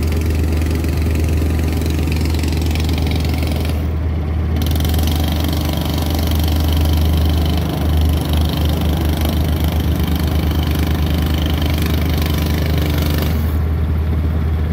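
Small off-road engine running, a mini bike or small ATV. It runs steadily with a strong low rumble, and from about halfway through it settles into a fast, even pulsing.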